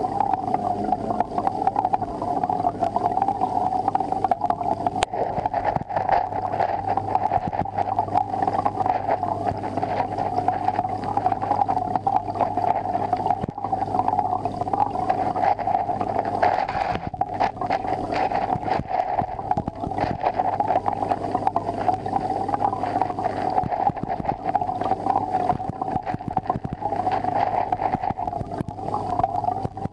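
Aquarium equipment running: a steady low hum under a constant rushing, crackly water noise.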